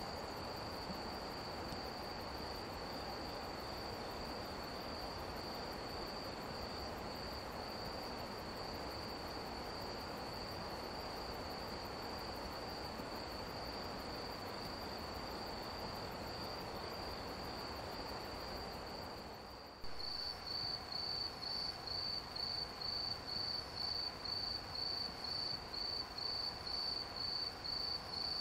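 Crickets chirping: a steady high trill over an even background hiss. About twenty seconds in the sound cuts to a louder cricket chirping in distinct pulses, about three a second, with less background noise.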